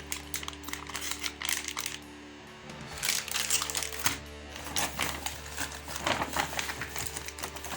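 Small plastic ration packets rustling, crinkling and tapping as they are handled and set down, over soft background music.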